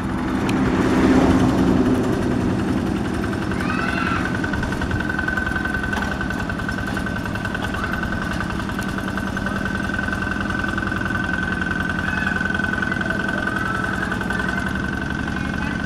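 Single-cylinder diesel engine of a Yanmar two-wheel walking tractor chugging steadily under load as it pulls an implement through wet paddy mud, a little louder about a second in. A steady high whine and a few short chirps sit above it.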